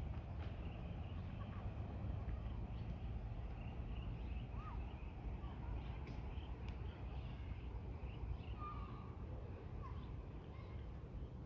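Steady low outdoor rumble, with a few short bird chirps scattered through it.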